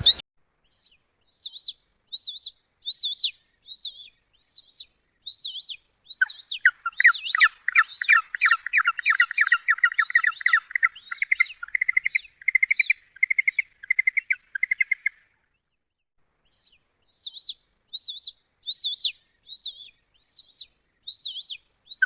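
Small birds chirping in short, high bursts of quick notes. About a third of the way in, a long, fast run of lower repeated notes joins for around nine seconds.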